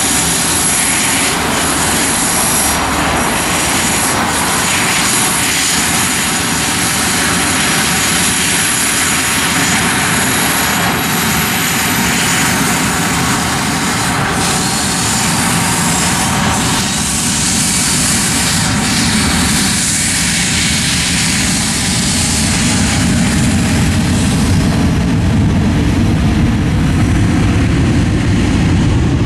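Boeing 737-300's CFM56 turbofans running with a high whine, then a deeper rumble growing louder over the last few seconds as the jet turns its exhaust toward the listener and spools up for take-off.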